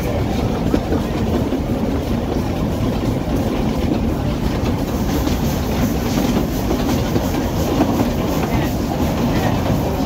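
Wooden carriage of a narrow-gauge heritage steam train running along the track: a steady rumble of wheels on rails with irregular clattering.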